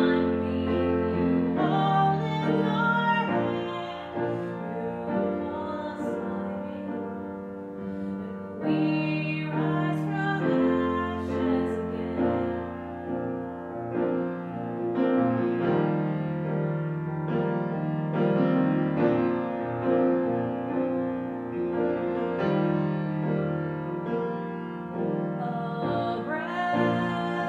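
A woman singing a song while accompanying herself on a grand piano.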